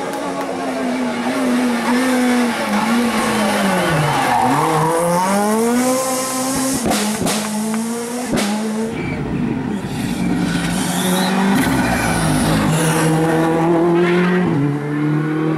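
Rally car engine revving hard on a stage, its pitch dropping to a low about four seconds in and then climbing through the gears. Several sharp cracks follow between about seven and eight and a half seconds, then the engine holds a steadier high note.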